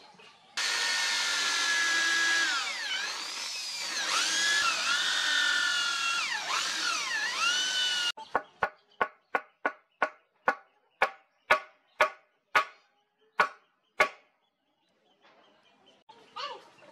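Electric drill boring into a hardwood block, its motor pitch dipping and recovering several times as the bit bites into the wood. It stops about eight seconds in and is followed by about fifteen sharp, ringing knocks, a little over two a second.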